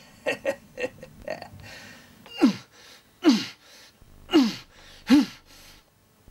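Wordless vocal sounds from voice actors at a dubbing microphone: a quick run of four short sounds, then four louder separate cries about a second apart, each falling in pitch.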